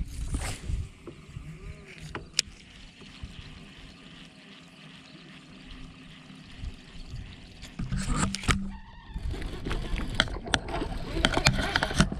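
Sounds of fishing from a bass boat: scattered sharp clicks and knocks, quieter in the middle, then louder knocking and rustling with a low steady hum from about eight seconds in.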